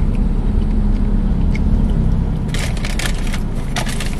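Steady low rumble of a moving car heard inside the cabin. About two and a half seconds in, a paper takeaway bag starts rustling and crinkling.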